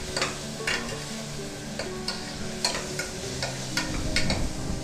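Steel spoon stirring and scraping shallots, green chillies and ginger-garlic paste frying in hot oil in a small pressure cooker, with scattered clicks of the spoon against the pot over a steady sizzle. The paste is being sautéed until its raw smell is gone.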